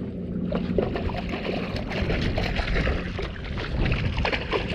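A hooked small yellowtail thrashing and splashing at the surface beside the hull, a rushing, churning water sound. Under it, the fishing boat's engine idles with a steady hum.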